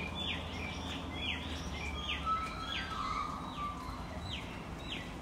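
A bird calling repeatedly: a run of short, down-slurred high notes, about one or two a second, over a low steady hum.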